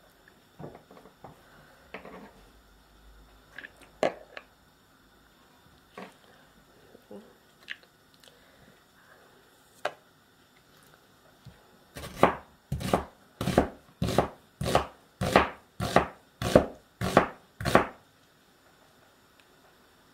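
Knife chopping food, a run of about a dozen even strokes roughly two a second in the second half, after scattered light knocks and taps.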